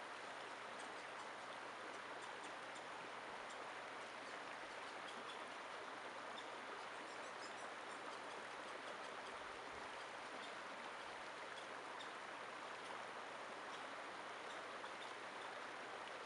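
Shallow mountain creek flowing over rocks: a steady, even rush of water, with faint high ticks scattered through it.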